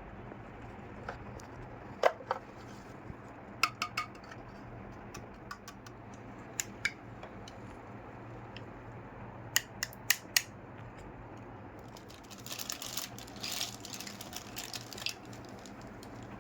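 Small toy kitchen pieces being handled: scattered sharp clicks and taps, some in quick pairs and triples, then a few seconds of rustling near the end, over a steady low hum.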